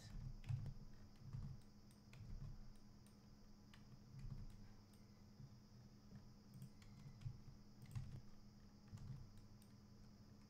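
Faint scattered clicks of a computer mouse, its scroll wheel and buttons, over a steady low hum, with a few soft low thumps.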